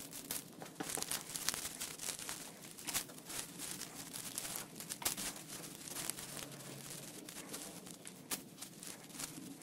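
Packed dirt and dry debris being scraped and pulled out of a metal housing by a gloved hand: irregular rustling and crackling.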